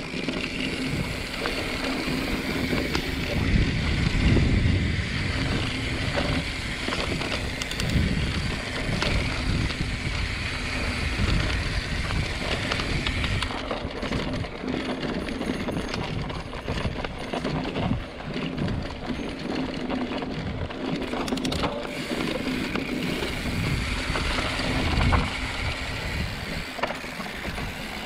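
Mountain bike being ridden along a dirt trail: tyre and trail noise with scattered clicks and rattles, over a heavy low rumble that rises and falls.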